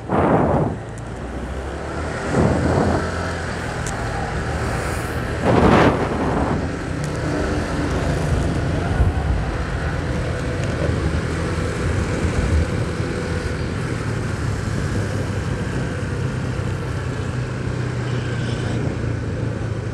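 Motorcycle engine running steadily while riding, with road and wind noise. Three brief louder bursts of noise come in the first six seconds.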